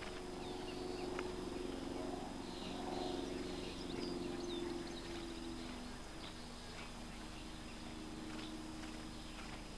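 Outdoor ambience: a steady low hum that fades about six seconds in, birds chirping, and a few faint knocks from a horse's hooves as it trots and canters on grass.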